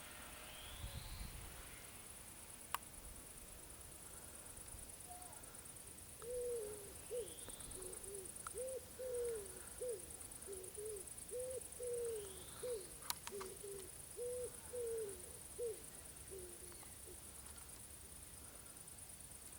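A pigeon cooing in a run of short, low, falling notes for about ten seconds, starting about six seconds in. Crickets chirr steadily and high in the background.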